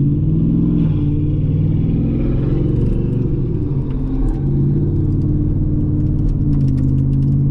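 Ford pickup truck's engine pulling hard in sport mode, heard from inside the cab, its pitch dropping and climbing again several times as it goes through the gears.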